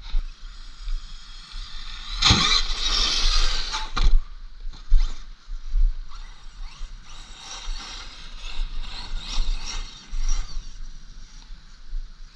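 Tekno MT410 6s RC monster truck driving, its EzRun 4274 2200KV brushless motor and gear drivetrain whining with gritty mechanical noise. A louder burst of revving, rising and falling in pitch, comes about two seconds in, with knocks at its start and end.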